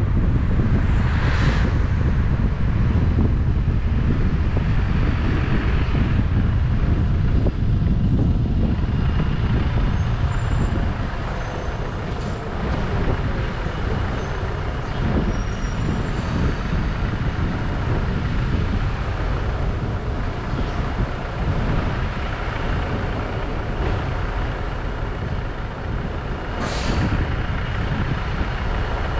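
Steady low rumble of road and wind noise from a car driving in city traffic, with a short sharp hiss near the start and another near the end.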